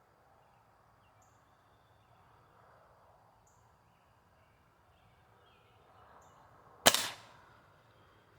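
A single shot from a Ruger pellet rifle about seven seconds in: a sharp crack with a brief tail. Before it there is only faint outdoor background.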